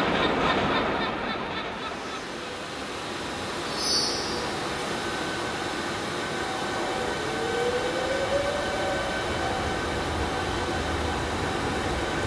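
Train moving through a railway station: a steady rumble that grows from about eight seconds in, with faint thin wheel-squeal tones on top and a brief high hiss about four seconds in.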